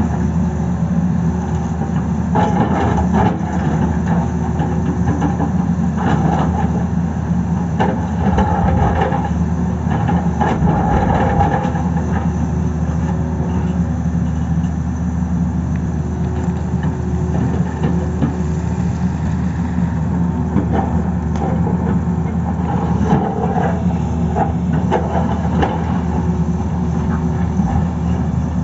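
A Tata Hitachi Zaxis 220 excavator's diesel engine runs steadily as it digs, with scattered knocks and clatter from the bucket working rock and soil.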